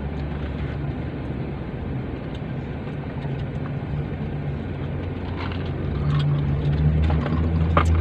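Car engine idling, heard from inside the cabin: a steady low hum that swells slightly in the last couple of seconds, with a few faint clicks over it.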